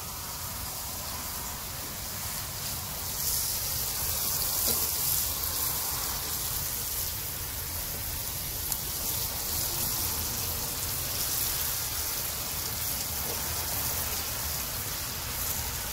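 Wet potato pieces sizzling in hot masala in a kadhai over a wood fire; the sizzle grows louder about three seconds in as more pieces go in, over a steady low rumble.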